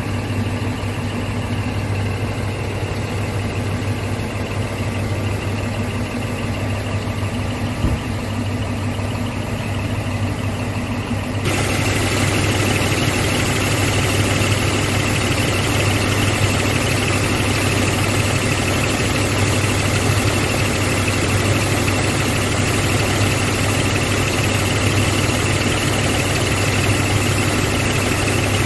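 Scania P380 truck's six-cylinder diesel engine idling steadily. About eleven seconds in it becomes louder and brighter, heard close up at the engine under the cab.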